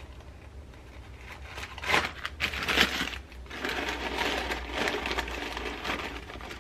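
Paper coffee filters and their plastic wrapper crinkling and rustling as filters are pulled from the pack and pressed into a plastic colander. The loudest crinkles come about two seconds in, followed by a longer stretch of softer rustling.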